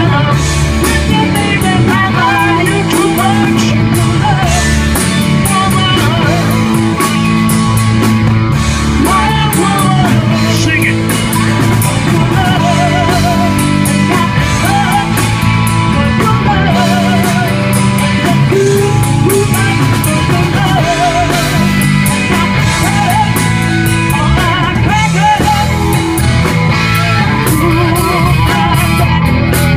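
Live rock band playing loud and steady: electric guitars, bass guitar and drum kit, with a woman singing lead with a wavering vibrato.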